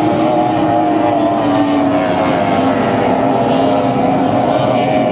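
Outboard engines of Formula One racing powerboats running in a steady drone, the pitch easing slightly down.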